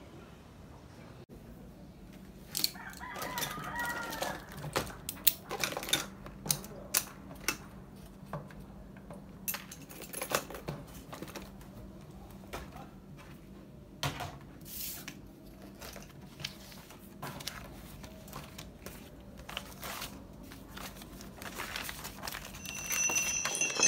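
A rooster crows once, about three seconds in. After it come scattered rustles and light taps of paper sheets and index cards being handled and flipped, louder near the end.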